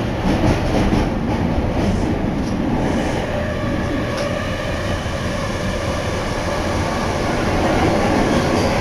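Osaka Municipal Subway Nagahori Tsurumi-ryokuchi Line linear-motor train running through the tunnel, heard from inside the car: a steady rumble of wheels and running noise. Faint high-pitched tones come in after about three seconds, and the noise grows slightly louder near the end.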